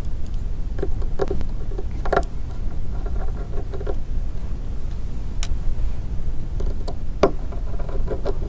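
Scattered light clicks and taps as a T5 screwdriver works small screws out of the metal frame over a Motorola Atrix HD's circuit board, over a steady low rumble.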